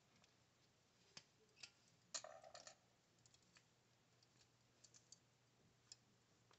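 Near silence broken by faint, scattered clicks from binding wire being worked off a fused metal billet, with a short cluster of clicks about two seconds in.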